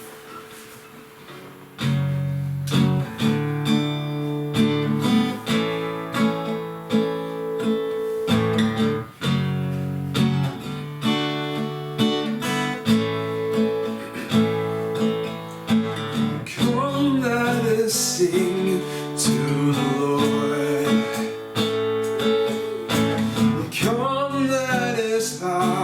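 Acoustic guitar strumming chords in a steady rhythm, starting about two seconds in, as the introduction to a worship song. A singing voice comes in briefly a few times in the second half.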